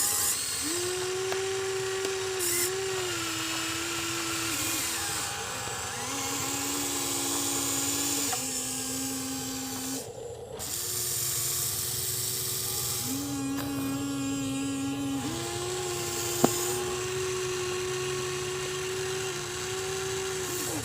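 Electric gear motors of a Huina 1593 RC excavator whining steadily, the pitch stepping up and down as different functions start and stop. The whine breaks off briefly about halfway through, and there is a single sharp click later on.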